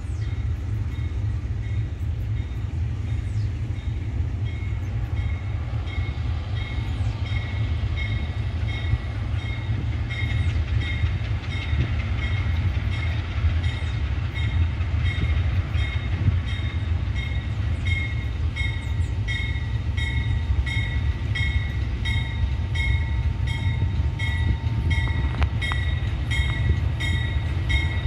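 GE U20C diesel-electric locomotives approaching on a freight train, a steady low rumble. Over it, a high-pitched tone pulses rapidly and gets louder after about six seconds.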